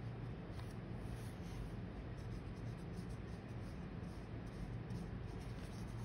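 Paintbrush bristles stroking and dabbing paint onto paper: faint, irregular scratchy strokes over a steady low hum.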